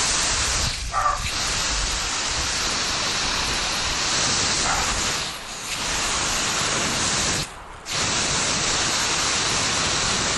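Water spraying from a nozzle on the end of a garden hose, a steady hiss that drops away briefly twice, once around the middle and again later on.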